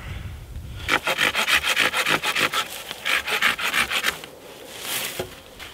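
Folding hand saw cutting through a wooden pole in quick back-and-forth strokes, starting about a second in and stopping about four seconds in. A single soft knock comes near the end.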